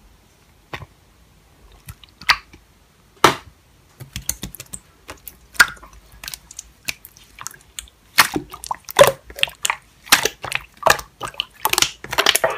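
Clear slime squeezed and pressed by hand, giving wet, sticky clicks and pops. They come a few at a time at first and then thick and fast over the last few seconds.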